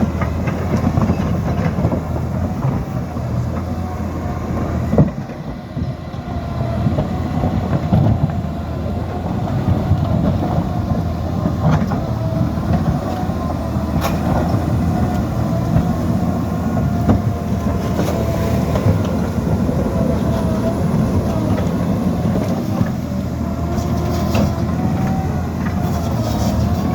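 Liebherr 754 crawler dozer running steadily, with a wavering whine over the engine and scattered clanks and knocks from the tracks and blade.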